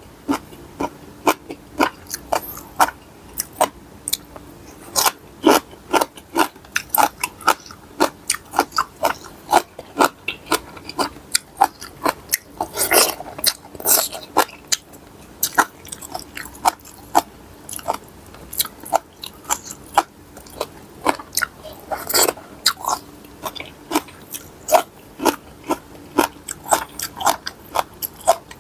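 Someone chewing and biting into mixed-seafood papaya salad up close, with frequent irregular sharp crunches, two or three a second, a few louder than the rest. A faint steady hum runs underneath.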